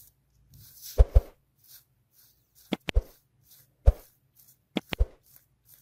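A HANDSKIT 60 W soldering iron's hot tip, set to about 350 °C, wiped on a damp cleaning sponge, giving a series of short, sharp pops with brief sizzles, some in quick pairs, as the water flashes to steam.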